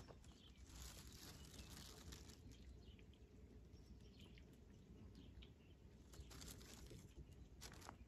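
Quiet outdoor ambience: faint rustling, with a few soft bird chirps.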